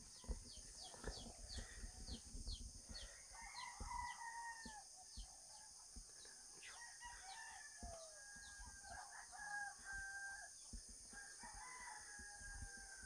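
Roosters crowing faintly, several long drawn-out calls overlapping and falling away at their ends. A high short chirp repeats about twice a second through the first half.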